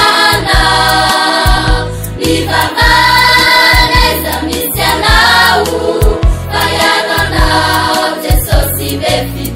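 Gospel song sung by a choir in Malagasy, with long held sung lines over a steady drum beat and bass.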